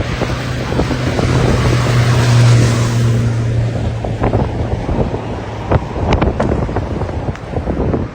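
Strong wind buffeting the microphone in irregular gusts, under a steady low hum that swells, then fades out about six seconds in.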